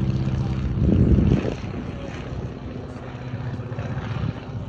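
Boeing Stearman biplane's radial engine running as the plane flies overhead. It is loudest about a second in, then quieter after about a second and a half.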